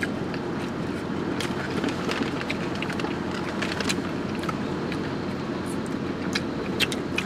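Steady hum and rush of a car's engine and air conditioning running inside the cabin, with many scattered sharp clicks of chewing and handled food wrappers.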